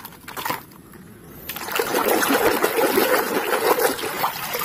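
Water splashing and trickling as a plastic toy steam locomotive is rinsed by hand in flowing water, starting about a second and a half in. Before that, a faint click or two.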